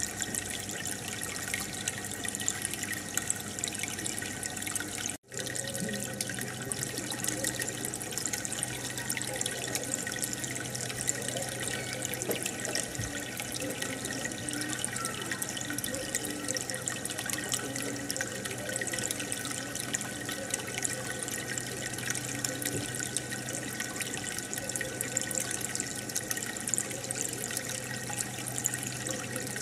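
Steady trickling and bubbling of aquarium water, with a low hum joining after a momentary dropout about five seconds in.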